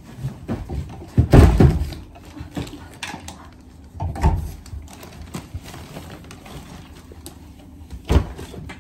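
Rustling thumps and knocks as a person comes in carrying a quilted bag: the loudest, a heavy rustle, about a second in, another shortly after four seconds, and a sharp knock near the end.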